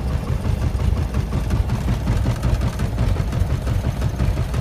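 Cessna 172's four-cylinder piston engine idling at low throttle, running extremely rough with an uneven, pulsing beat. A blown intake manifold gasket on one cylinder makes it sound as though it isn't firing on all four cylinders.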